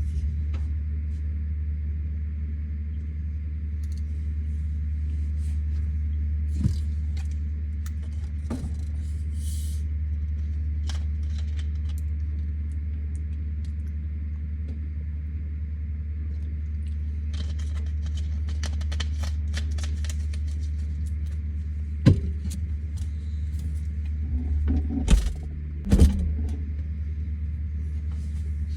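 A steady low mechanical hum throughout, with a few short knocks and clinks, the loudest about two-thirds of the way through and twice more near the end.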